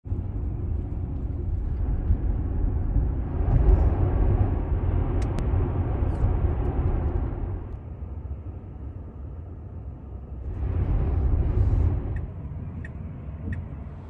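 Low road and tyre rumble inside a moving car. It is louder from about three to seven seconds in, quieter for a few seconds after that, then swells again around eleven seconds before easing off.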